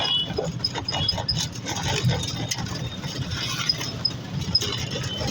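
Vehicle jolting over a potholed road: loose parts rattling and clinking with many irregular knocks over a low rumble.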